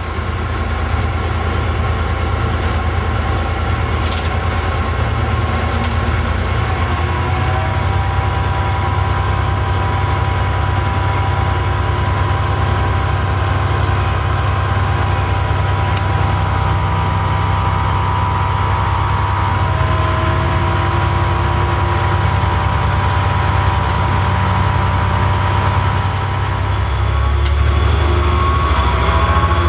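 T44 diesel-electric locomotive running under power, heard from inside its cab: a steady low engine drone with a higher steady whine above it. Near the end it gets louder and the pitch rises as the engine speeds up.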